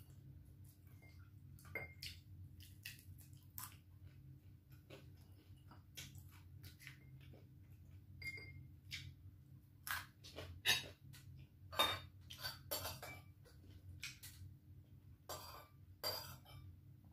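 Scattered clinks and clicks of tableware as food is handled: a metal spoon against a glass serving bowl and plates, with the loudest clinks in the second half, over a faint steady room hum.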